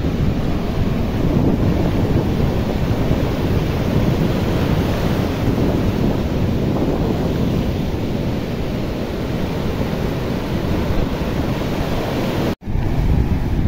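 Rough sea surf breaking and washing over a flooded shore, a steady rushing noise, with wind buffeting the microphone. The sound cuts out for an instant near the end.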